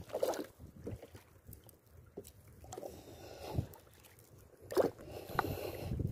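Small waves lapping and sloshing against the side of a small fishing boat, with a few sharp knocks.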